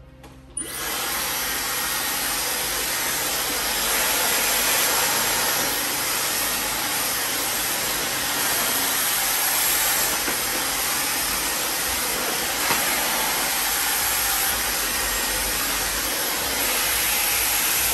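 Hand-held hair dryer switched on about half a second in, then blowing steadily without a break while drying a section of hair pulled along a round brush.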